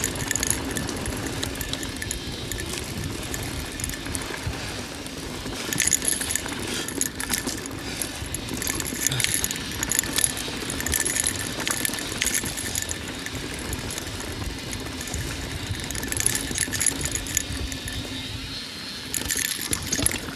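Mountain bike riding down dirt singletrack: tyres rolling over dirt and stones, with the chain and bike parts clattering over bumps and wind rumbling on the microphone.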